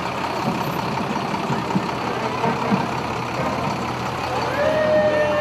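Steady road traffic noise from passing vehicles. About four and a half seconds in, a siren starts, rising in pitch and then holding a steady tone.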